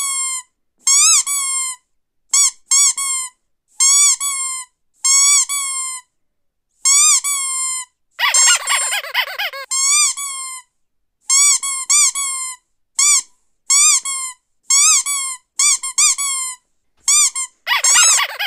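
Rubber squeaky dog toy squeezed over and over: short rising-and-falling squeaks, often in quick pairs, with a longer, rougher squeal about eight seconds in and another near the end.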